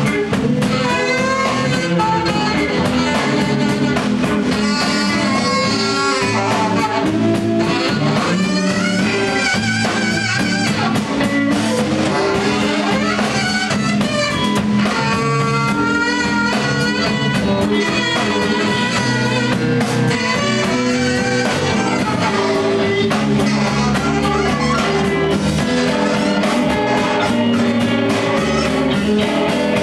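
Chicago blues band playing live: saxophone, electric guitars, electric bass and drums together.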